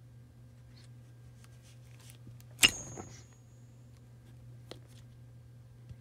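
Large 8 mm anti-spark power connector being pulled apart under a 33-volt load: one sharp click about two and a half seconds in with a brief high ring, then two faint ticks, over a faint steady low hum. No spark crackle is heard, the anti-spark design doing its job.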